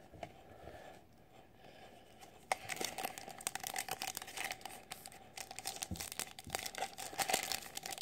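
Foil trading-card pack being torn open and crinkled by hand: quiet at first, then a sharp rip about two and a half seconds in and dense crinkling crackle after it.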